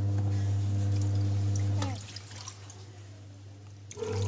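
Water pouring from a plastic jug into a plastic cup, under a strong steady low hum. The sound stops about two seconds in and starts again near the end, as the cup is refilled.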